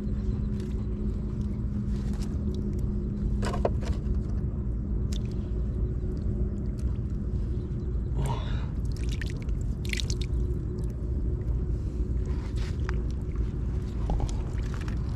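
A steady low rumble with a constant hum, and a few brief faint clicks.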